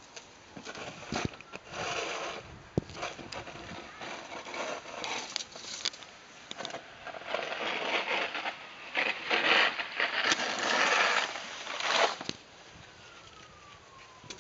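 Irregular bursts of scraping and rustling noise with a few sharp clicks, loudest from about 7 to 12 seconds in.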